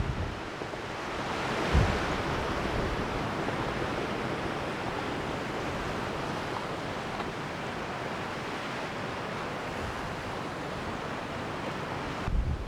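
Steady rushing of strong wind, swelling briefly about a second and a half in.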